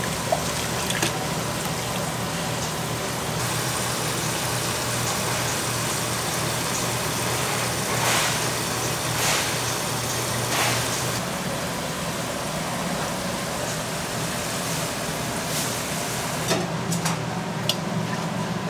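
Steady low hum of kitchen machinery under a broad hiss, with a few light clicks.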